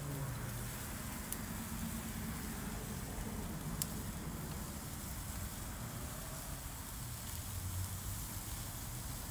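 Sausages sizzling on a small charcoal grill over hot-running coals, a steady hiss, with two light clicks of metal tongs about a second and nearly four seconds in.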